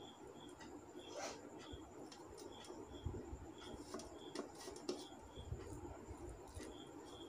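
Fingers mixing rice and curry on a steel plate: faint squishing with small scattered clicks and taps of the hand against the metal.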